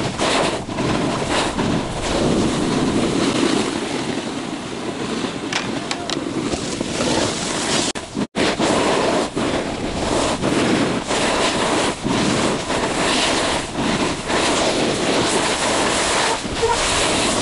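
Wind buffeting the microphone and snowboard edges scraping and chattering over snow during a run down the slope. The sound cuts out for a moment about eight seconds in.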